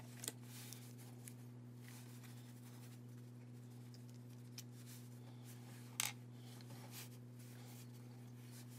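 Faint steady low hum with a few light clicks and taps of small craft items being handled on a tabletop, the sharpest about six seconds in.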